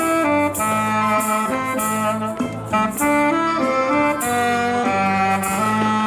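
Saxophone playing a melody live over a backing accompaniment, with shakers keeping a steady beat.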